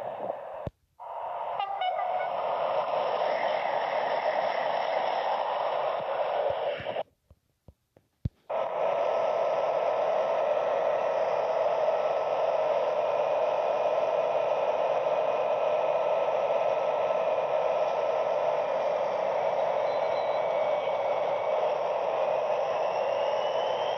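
Diesel locomotive engine running steadily while standing at a station platform, a constant drone with a faint rising whine in the last couple of seconds. Two brief dropouts break it in the first third.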